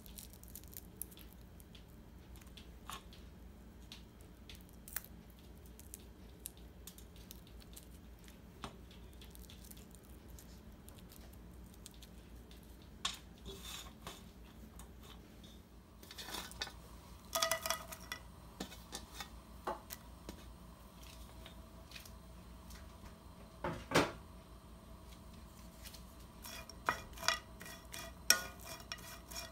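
Faint crackles and ticks of dried anchovies being picked apart by hand over a stainless steel plate. In the second half come clinks of the metal plate with a short ringing tone, a single loud knock, and near the end clicks of a wooden spatula stirring the anchovies in a frying pan.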